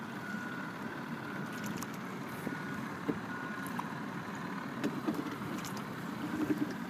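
Single scull being rowed: faint splashes of the oar blades and a few light knocks from the oars and oarlocks over a steady low hum. A faint high beep sounds in short bursts at intervals.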